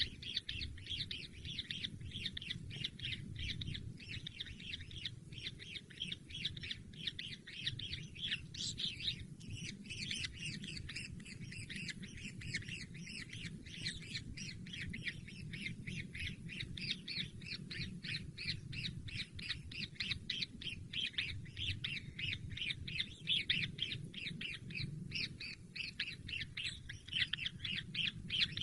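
Newly hatched kingfisher chicks calling nonstop, a dense run of short, rapid squawking chirps several times a second.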